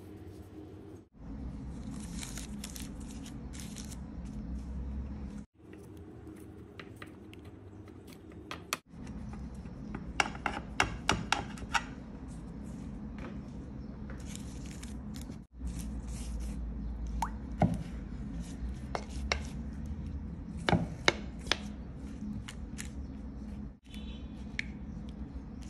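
A knife cutting through rolls of raw filo pastry in a glass baking dish: clusters of sharp, crisp crackling ticks, with quieter rustling of the pastry between them.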